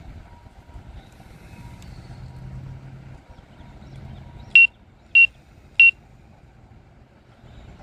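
Three loud, high-pitched warning beeps about half a second apart from the Autel Evo I drone's app, its obstacle-avoidance alert: the drone is closing on the tree and bucket truck, about 9.5 m away. Under them runs a faint low hum.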